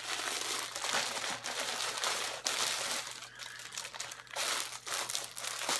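Plastic bag crinkling as it is handled, in irregular crackling rustles.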